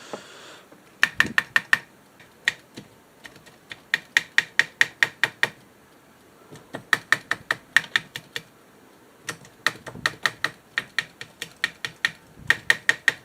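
A switch on a Sanyo STD-1410 stereo cassette deck clicking as it is flipped back and forth quickly, about eight clicks a second, in repeated bursts with short pauses between them. The switch is being exercised to work dirt off its contacts, which cause a channel to drop out.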